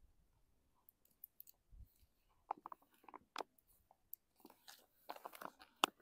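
Scattered plastic clicks and crinkles as a Sawyer Squeeze water filter is twisted on its soft plastic water pouch and the pouch is handled, getting busier in the second half.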